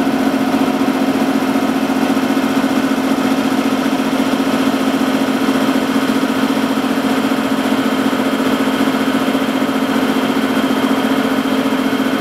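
Diesel locomotive engine running steadily, an even drone that holds the same pitch throughout.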